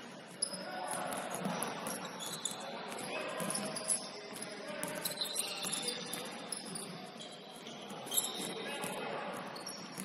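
Basketball game on a hardwood gym floor: sneakers squeaking in short chirps, the ball bouncing, and players' voices calling out.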